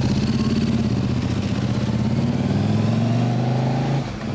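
KTM 1190 RC8's V-twin engine running close by, its pitch climbing as the bike accelerates. About four seconds in the sound drops suddenly to a quieter motorcycle engine.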